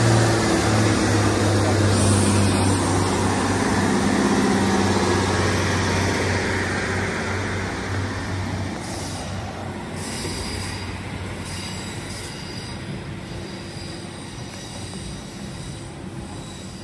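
Class 150 diesel multiple unit's underfloor diesel engine running with a low drone as the train moves along the platform, fading over the first half. Later, quieter rail noise with a faint high squeal of wheels on the rails.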